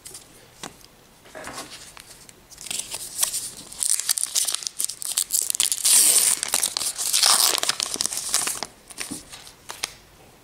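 A trading-card pack wrapper being torn open and crinkled, a steady crackling rustle that starts a couple of seconds in and is loudest midway, after a few light clicks of cards being handled.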